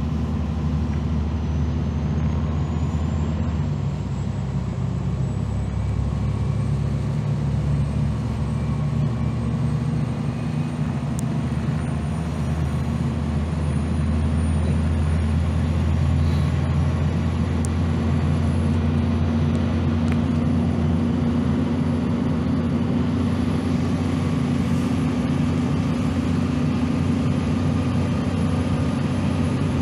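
Cummins ISM diesel engine and Allison B400R automatic transmission of a 2001 Gillig Phantom transit bus, heard from inside the cabin while the bus cruises, a steady low drone that grows a little louder about halfway through. A faint high whine rises slowly in pitch over the whole stretch.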